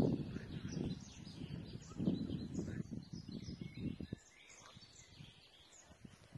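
Several small songbirds chirping and twittering. Low rumbling noise on the microphone runs through about the first four seconds, then drops away and leaves the birdsong alone.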